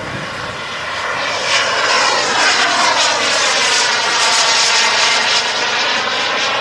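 The King Tech turbine of a radio-controlled Carf Model Viper Jet, running at power as the model makes a pass overhead. It swells about a second in, with a sweeping, phasing sound as it goes by, and eases off near the end.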